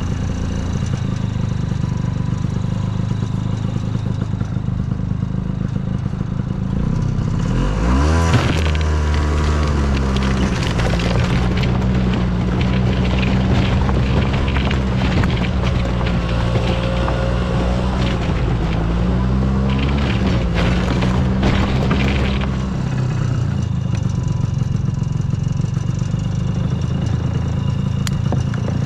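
Rebuilt Ski-Doo Tundra snowmobile engine running along a snowy trail, revving up about eight seconds in and holding higher revs for about fourteen seconds before easing back to a steady lower note.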